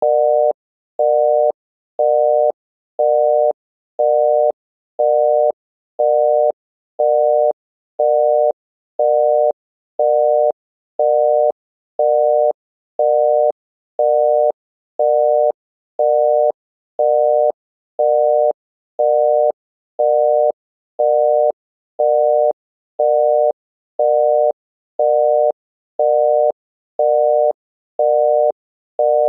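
Obsolete US telephone busy signal: a 600 Hz tone amplitude-modulated by 133 Hz, beeping half a second on and half a second off, about once a second. It tells the caller that the called line is busy.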